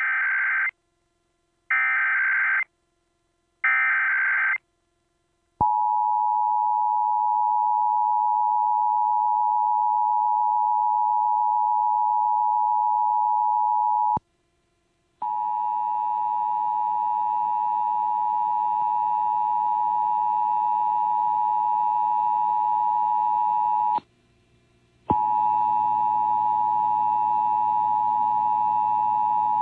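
Emergency Alert System test tones: three short bursts of SAME header data, then the steady two-tone EAS attention signal (853 and 960 Hz). The attention tone cuts out twice for about a second, and its later stretches carry hiss and a low hum underneath.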